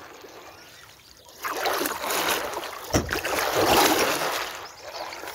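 Kayak paddle strokes in the water: two long swishing splashes, each swelling and fading over about two seconds, with a brief click between them.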